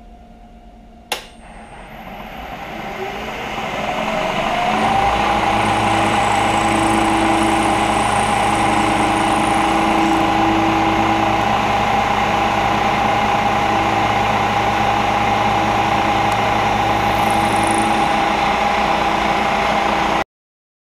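Variable-speed Bridgeport Series 1 milling machine switched on with a click, its spindle motor winding up in pitch over a few seconds, then running steadily as the end mill cuts the metal pommel blank. The sound cuts off suddenly near the end.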